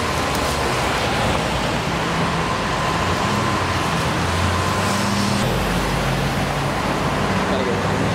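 Steady roadway traffic noise, with a car driving past close by.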